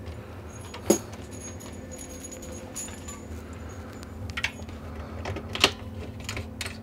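Clicks and light metallic clatter of cable connectors and bench gear being handled while the coax is switched back over to a CB radio: a sharp click about a second in, a loud one near the end, and smaller clicks in between, over a steady low hum.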